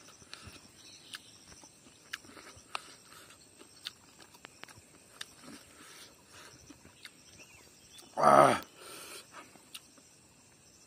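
Eating by hand close to the microphone: small wet clicks of chewing and fingers working rice, with one loud short cry about eight seconds in.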